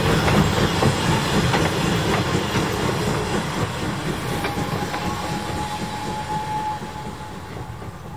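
Open-air railroad passenger cars rolling past on the track, the wheels rumbling along the rails with a few clicks, the sound fading steadily as the last car goes by.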